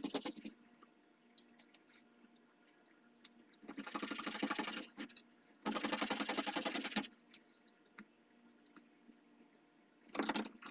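Coping saw cutting through a wooden rifle handguard in short spells of quick rasping strokes: a brief one at the start, then two of about a second and a half each, around four and six seconds in. Between them come faint taps, and there is a brief scrape near the end.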